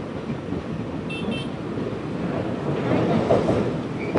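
Steady rumble of a moving express train heard from inside a coach, with wind on the microphone. Two short high chirps sound about a second in.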